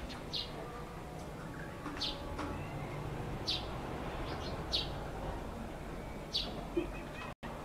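A small bird chirps about five times, single short high chirps roughly one every one and a half seconds, over a steady low outdoor rumble. The sound cuts out for a moment near the end.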